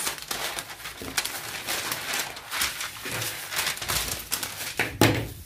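Paper rustling and crackling as a sheet of pattern paper is handled and cut, with a louder knock about five seconds in.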